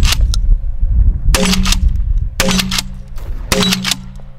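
Three blasts from a Remington TAC-14 DM 870 pump-action shotgun firing buckshot, about a second apart, with the pump racked between shots. Wind buffets the microphone in the first half.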